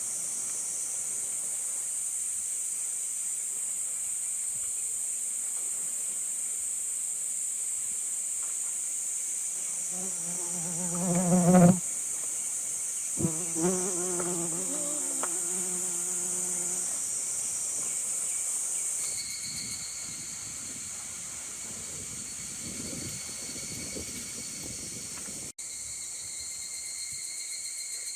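Steady, high buzzing chorus of summer insects, changing about two-thirds of the way through to a thinner, higher-pitched steady drone. Around ten to seventeen seconds in, a short low pitched sound breaks in and is loudest near the start.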